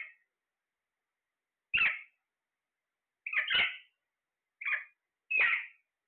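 Alexandrine parakeets giving short calls: about five brief squawks spaced roughly a second apart, the third one doubled, with silence between them.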